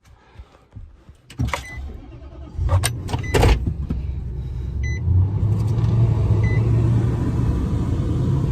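A few sharp knocks, then a car engine starts and runs steadily, with a couple of short electronic beeps.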